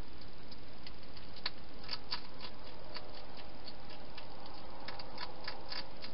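Wild European hedgehog eating from a bowl: irregular quick clicks and smacks of chewing, over a steady hiss.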